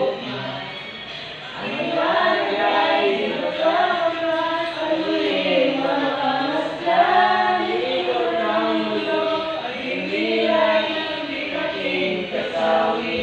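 A class singing a song together in unison, many voices holding and gliding between notes.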